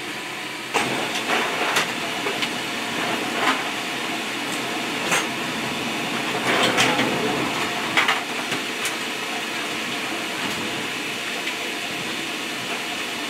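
Brass 40 mm cartridges knocking and clinking as they are handled out of an ammunition can and laid in a loading rack: a handful of sharp metallic knocks over a steady rushing hiss.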